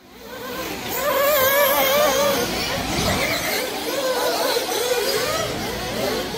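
Small nitro RC car engines running at high revs, their shrill pitch rising and falling as the cars accelerate and brake, fading in at the start.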